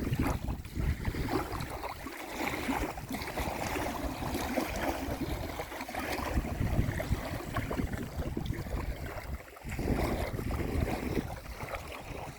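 Lake water lapping and splashing in small waves close by, with wind buffeting the microphone.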